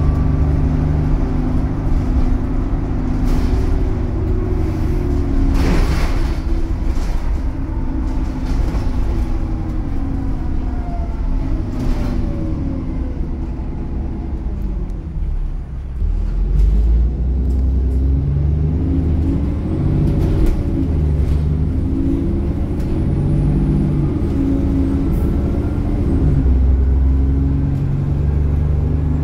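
ADL Enviro400 E40D double-decker bus heard from the upper deck: its diesel engine and ZF automatic gearbox with the Topodyn shift programme. The engine note falls as the bus slows, with a short hiss about six seconds in. Roughly halfway through it pulls away, the revs rising and dropping in steps through several gear changes.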